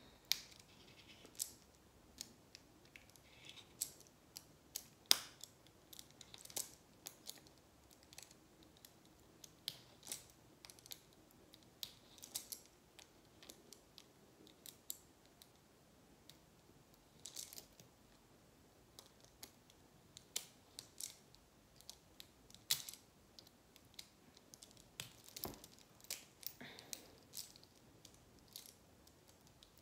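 Faint, irregular metal clicks and light scrapes from a small hand tool working against a metal wristwatch case and bracelet.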